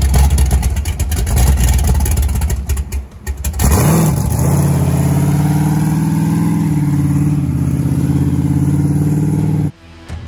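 Monster truck engine running loud with a rough, uneven low rumble, then revving up about four seconds in and holding a steady drone as the truck pulls away. The sound cuts off suddenly near the end.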